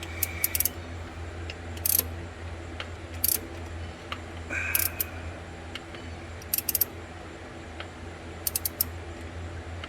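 Ratcheting box-end wrench clicking in short bursts of a few clicks, about every one to two seconds, as it turns a spark-plug socket to tighten a new oil pressure sensor. A steady low hum runs underneath.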